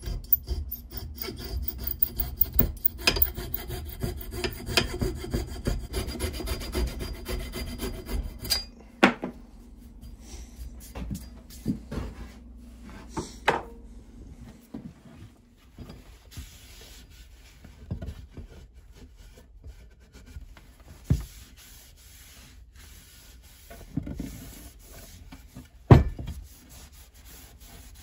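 Bow hacksaw cutting through the wooden axe handle end that sticks out of the axe head's eye, with fast steady strokes and a faint ringing from the blade; the sawing stops after about eight seconds. After that come a few scattered knocks, the loudest near the end.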